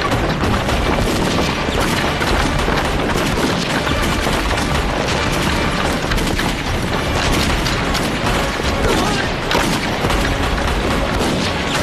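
Dense rifle and machine-gun fire mixed with booming explosions, a continuous din of battle with no pause.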